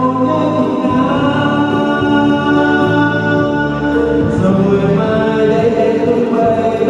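A man singing into a handheld microphone, amplified, with musical accompaniment underneath; he holds long, steady notes.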